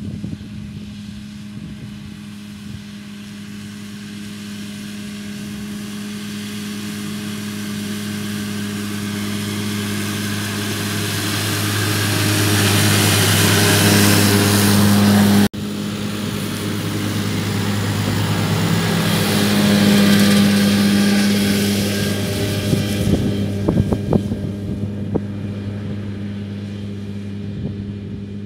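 Case Farmall 115U Pro tractor's diesel engine working steadily under load while driving a Kuhn FC 313 disc mower-conditioner through standing grass, with the whirring hiss of the spinning cutter discs over the engine's hum. It grows louder as the rig passes close, cuts out for an instant about halfway, swells again and then slowly fades as it works away.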